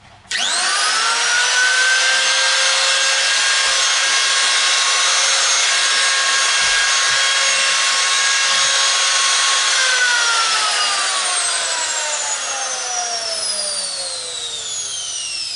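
A Ferm 125 angle grinder's brushed motor switched on, spinning up within about a second to a steady whine, running with no load for about ten seconds, then switched off and winding down with a falling whine. The motor has new brushes and a reworked armature, and it runs properly.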